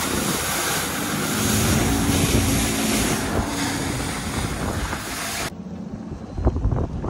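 Alumacraft aluminium fishing boat running fast across choppy water: a steady outboard drone buried under wind and spray noise. About five and a half seconds in it cuts off suddenly to a quieter scene of wind rumble and a few knocks.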